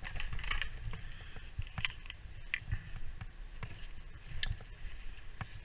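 Scattered light clicks and knocks as gear is handled: about five separate sharp ticks, the loudest near the end. Under them runs a low steady rumble.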